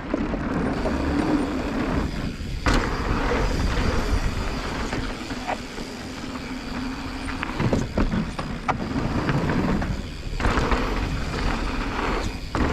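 Mountain bike descending a dry, dusty dirt trail: steady tyre noise and wind buffeting the microphone, with scattered clicks and knocks as the bike rattles over bumps.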